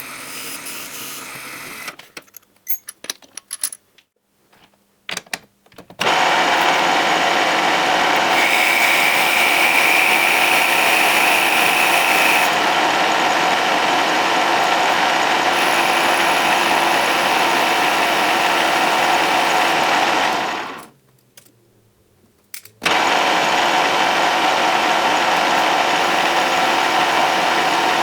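A power-tool motor running steadily and loudly, likely a machine tool cutting Teflon stock, with a higher whine for a few seconds near the start of the first run. It stops twice, first early on with a few clicks and knocks in the lull, then again for about two seconds before starting back up.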